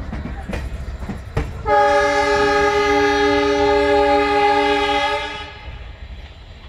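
Indian Railways locomotive horn sounding one long, steady blast of about four seconds, starting a little under two seconds in, as the express train pulls into the station. Before and after the horn, the train rumbles low and its wheels knock over the rail joints.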